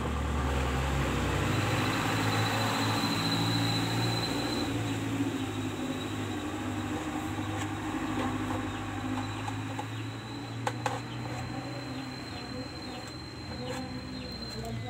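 A steady low mechanical hum like a running motor, with a thin high whine held in two long stretches over it. Two sharp knocks come close together about eleven seconds in.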